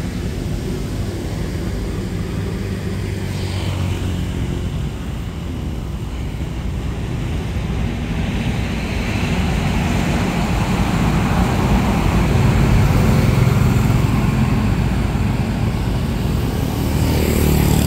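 Road traffic with motorbikes passing: a steady engine rumble that grows louder past the middle.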